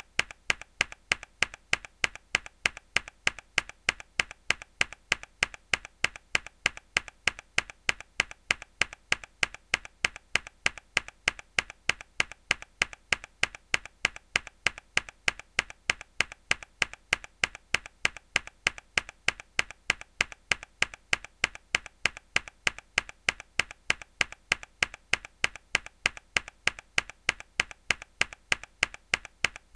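Mechanical keyboard key pressed hard over and over, a sharp click repeating at an even rhythm of about three a second.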